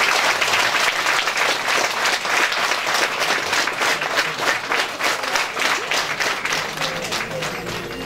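Audience applauding in a hall: many people clapping at once, tapering off near the end.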